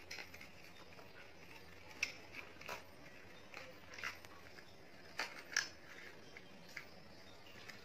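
Faint, scattered clicks and crinkles of a thin cardboard Goodknight box as its cut flaps are pressed down and folded by hand, with light taps of craft items on a hard floor. The sharpest clicks come about two seconds in and twice a little after five seconds.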